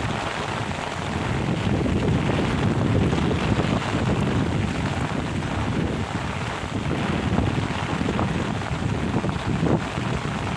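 Heavy rain with strong wind gusting over the microphone: a continuous rushing hiss with a fluctuating low rumble from the gusts.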